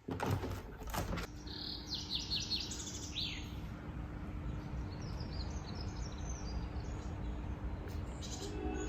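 Small songbirds singing in two spells of quick, high chirping phrases over a low steady background rumble and a faint hum, with two knocks in the first second or so.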